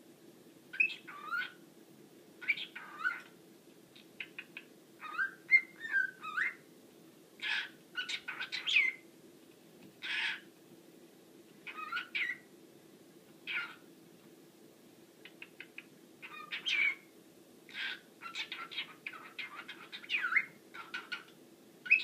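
Cockatiel whistling and chirping in a run of short phrases, one every second or so, the pitch gliding up and down with some harsher chirps among the whistles. A steady faint low hum runs underneath.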